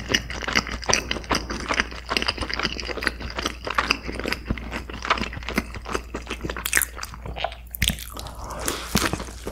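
Close-miked chewing of crispy fried chicken: steady crunching and crackling of the breading between the teeth, with a fresh crunchy bite near the end.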